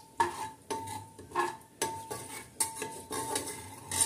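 A steel ladle stirring and scraping inside a pressure cooker, knocking against the pot about seven times. The pot rings briefly after each knock.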